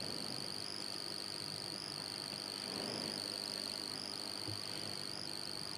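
A steady, slightly wavering high-pitched whine over faint hiss: background noise with no speech.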